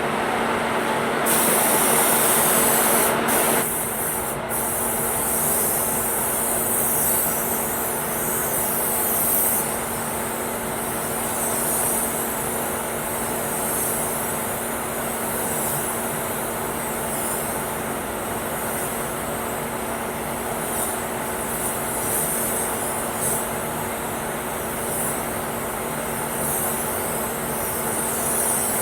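Compressed-air paint spray gun hissing steadily over a constant machine hum, loudest in the first few seconds.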